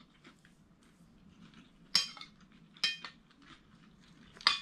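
Metal spoon and fork clinking and scraping against a plate while eating, with a few sharp ringing clinks, the clearest about two and three seconds in and near the end.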